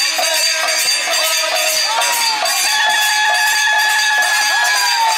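Kirtan ensemble playing: a clarinet carries a held, bending melody over sustained harmonium chords, with small brass hand cymbals clashing in a steady rhythm.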